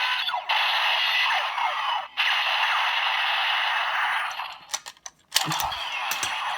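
DX Break Gunner toy playing an electronic sound effect, plausibly for the Rumble Dump Shift Car, through its small built-in speaker. It is a long, harsh, rattling gunfire-like blast, broken twice briefly, that stops after about four seconds. A few clicks follow, then a new burst of sound with rising sweeps near the end.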